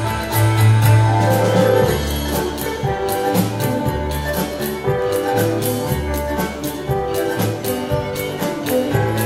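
Live contra dance band playing an upbeat tune, with a bass line and a drum kit keeping a steady beat.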